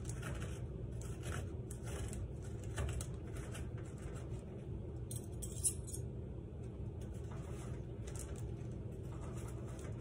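Metal forks scraping and clinking as they shred baked spaghetti squash into strands, in repeated short strokes, with one sharper clink a little past halfway. A steady low hum runs underneath.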